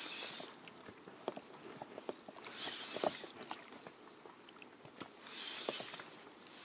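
Small waves lapping and splashing against the hull of a small rowing boat, a swish about every three seconds, with scattered light knocks in between.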